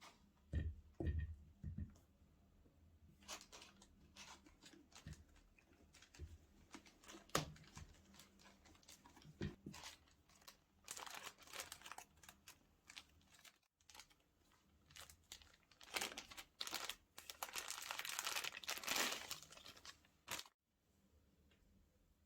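Sneaker box and its paper packaging being handled: a few soft knocks early on, then paper rustled and crinkled in two long stretches, one around the middle and one toward the end.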